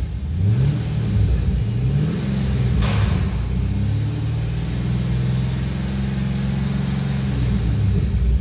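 Holden Commodore SS 6.0-litre V8 revved while parked: the revs climb in two quick steps in the first two seconds, then are held steady at about 2,000 to 2,500 rpm. A brief hiss sounds about three seconds in.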